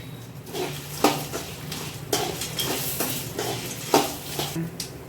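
Metal spoon stirring and scraping dried red chillies and whole spices roasting in a little oil in a pan, with irregular clinks against the pan; the two sharpest come about a second in and just before four seconds.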